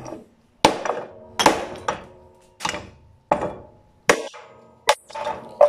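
A series of about eight sharp metallic clanks, each with a short ring, from broken pieces of welded grey cast iron being knocked against each other and against the concrete floor.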